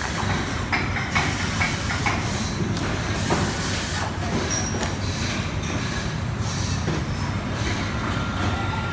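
Steady low workshop rumble with scattered light clicks and taps as wires and parts are handled at a hub-motor stator's axle.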